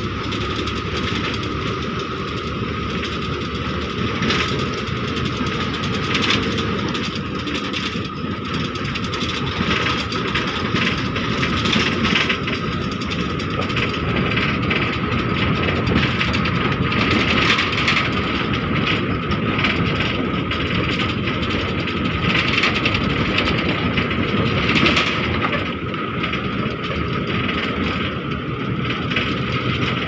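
Bus running steadily along a road, heard from inside at an open window: continuous engine and road rumble with wind noise and a steady whine.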